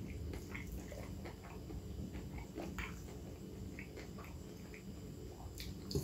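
Faint close-miked chewing of a mouthful of soft, creamy corn and instant noodles, with scattered small wet mouth clicks.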